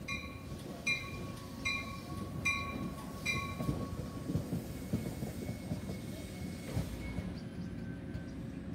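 NJ Transit Comet V push-pull train, with its ALP-46 electric locomotive pushing, arriving at the station, its bell dinging about once every 0.8 s until about 3.5 s in. The wheels rumble on the rails throughout, with a thin high squeal from about 5 to 7 seconds in.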